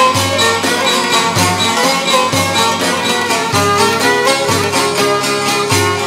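Traditional Albanian folk song recording: a violin plays an ornamented, sliding melody over a low bass note that sounds about once a second.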